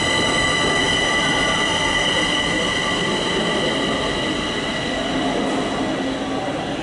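Kaohsiung MRT Red Line train pulling away from the station: running noise with a steady high-pitched whine that slowly fades as the train recedes.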